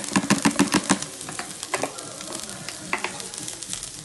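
Metal spoon stirring and scraping fried vermicelli and grated coconut in a stainless-steel saucepan: a quick run of clinks and scrapes in the first second, then occasional scrapes.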